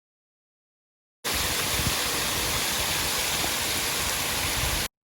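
Steady rushing noise with a rumbling low end, cutting in abruptly about a second in and cutting off just as abruptly near the end.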